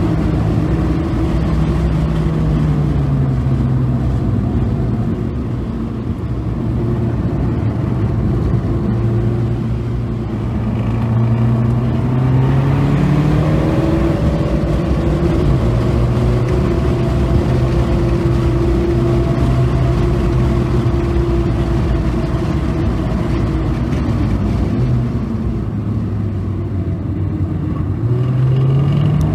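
Car engine heard from inside the cabin while lapping a race track. Its pitch climbs under acceleration about twelve seconds in and again near the end, and sags where the driver lifts for corners, over a steady rush of road noise.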